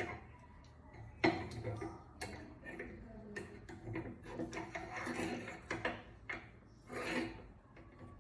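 Hands fitting and tightening a clamp on a metal stand rod: irregular clicks and knocks with rubbing and scraping, a sharp knock about a second in.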